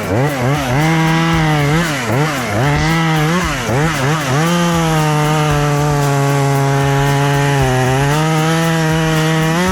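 Chainsaw revving up and down several times in quick succession, then held at a steady high speed while it cuts into a tree limb.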